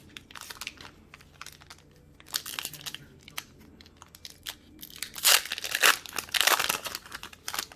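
Foil Pokémon TCG booster pack wrapper crinkling and being torn open, in irregular bursts that are loudest in the second half.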